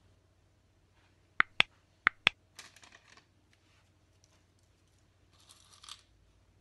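Four sharp clicks in two quick pairs, then brief soft rustling, and another short rustle near the end, like small objects being handled on a kitchen counter.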